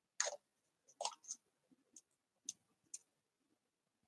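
A few faint, short rustles and clicks from hands handling the yarn and paper, spread irregularly over a few seconds.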